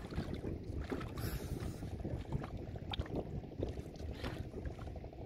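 Wind rumbling on the microphone over water lapping and small irregular splashes against the side of a wooden boat, stirred by a swimmer moving alongside and lifting a bamboo trap.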